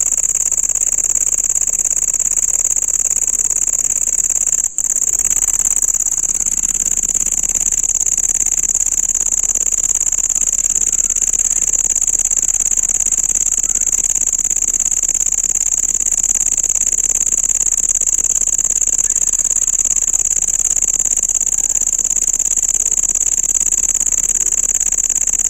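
Cricket singing: a loud, steady, shrill high-pitched trill that goes on without pause, apart from a brief break about five seconds in.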